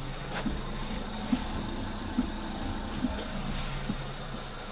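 A car's engine running steadily, heard from inside the cabin, with a soft low beat repeating a little more often than once a second.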